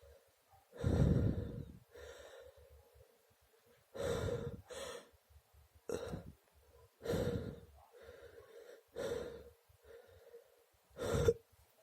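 A person's sharp, noisy breaths and gasps between allergic sneezes: the catching inhalations of a sneeze building up. There are about seven, one every second or two, and the strongest is about a second in.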